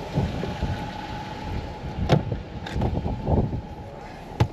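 Rumbling handling and wind noise on the microphone while people get into a car, with several knocks and thumps and a sharp clack near the end, typical of a car door shutting.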